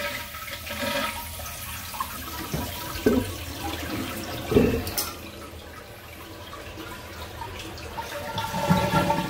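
Toilet flushing: water rushing steadily from a large 5-gallon tank, with a few short knocks partway through.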